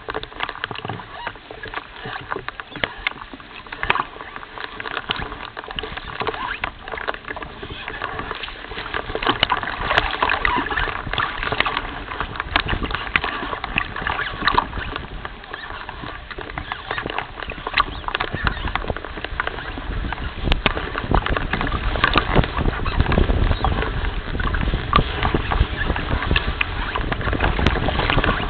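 Water lapping and crackling against the nest's edge, a dense run of small clicks, with a low wind rumble on the microphone that builds over the second half.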